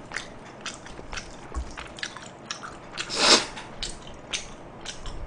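A person eating saucy stir-fried instant noodles: wet chewing with many small sharp mouth clicks, and one louder slurp of noodles about three seconds in.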